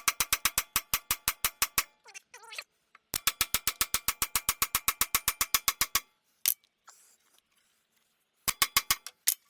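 Hand ratchet wrench clicking rapidly, about nine clicks a second, in three runs as a suspension bolt is spun. A short squeak comes between the first two runs.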